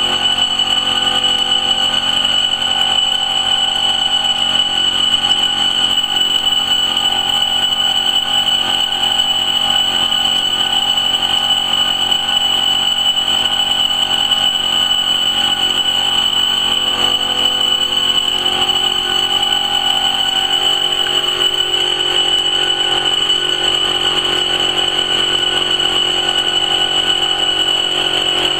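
Automatic-feed laser cloth-cutting machine running with its two laser heads cutting fabric: a steady machine hum with a constant high whine over it, the lower tones shifting a little about two-thirds of the way in.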